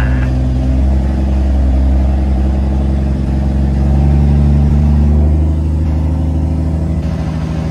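Semi-truck's diesel engine pulling a loaded lowbed trailer carrying a bulldozer, heard from inside the cab. The engine note swells and climbs a little about four seconds in, then drops back and turns rougher about a second and a half later.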